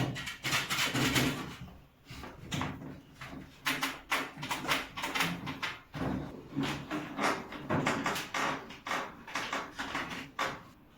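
Solid wood bed creaking and squeaking in a quick repeated rhythm, about two strokes a second, as weight is pressed on it; the noise comes from loose headboard-to-side-rail joints and the bed slats rubbing wood on wood against the side rails.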